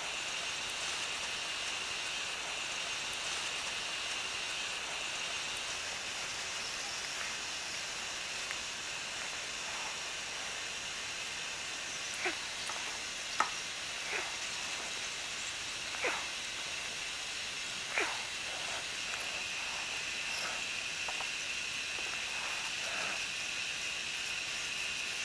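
Nitrogen plastic welder hissing steadily as gas streams from its heated nozzle, with the airflow turned down to about 10 litres per minute, while a polypropylene rod is welded into the plastic tab. A few short clicks come about halfway through.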